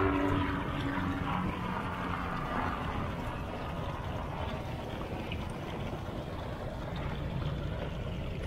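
Water gushing steadily from an outlet in the side of a fishing boat's hull and splashing onto the sea surface close by.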